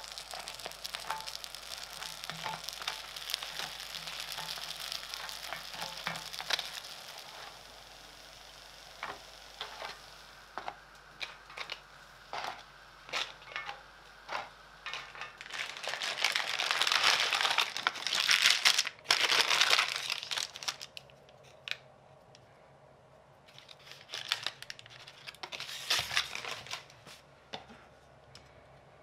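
Oiled baguette slices sizzling in an enamelled cast-iron grill pan, with small crackles. The slices are then set down with light taps, and the paper wrapping of a slab of smoked bacon crinkles loudly as it is unwrapped, in two spells in the second half.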